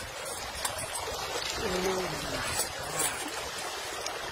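Water sloshing and splashing as a metal chain is worked by hand through shallow muddy water, with a few sharp clinks from the chain.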